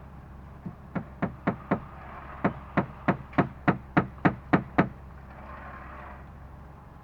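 Hammer blows struck in quick, even succession, about three or four a second: a run of five, a brief pause, then nine more.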